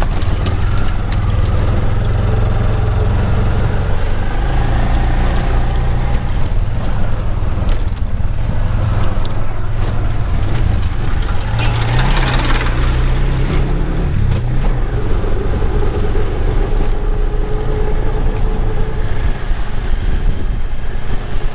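Tuk-tuk (auto-rickshaw) engine running steadily on the move, with road noise. A brief rush of noise comes about halfway through.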